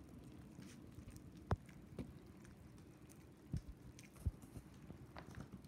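A puppy eating from a food bowl: faint chewing with small clicks, broken by four sharper knocks between about one and a half and four and a half seconds in.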